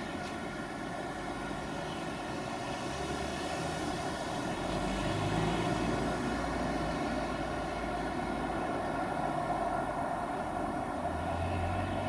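A steady drone in the night sky, made of many stacked even tones over a low rumble, swelling slightly about five seconds in. The recordist takes it for an eerie sound disturbance.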